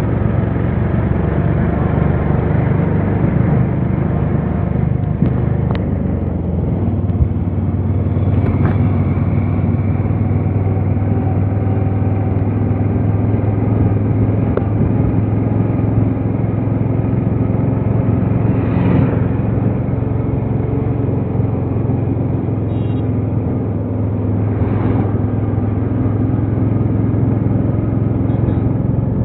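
Steady engine hum and road noise of a moving vehicle, with a few brief swells as other vehicles pass.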